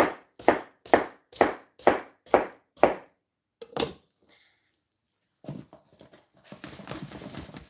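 Kitchen knife chopping watermelon on a cutting board: a steady run of strokes about two a second that stops about three seconds in, one more stroke shortly after, then a softer scraping and shuffling near the end.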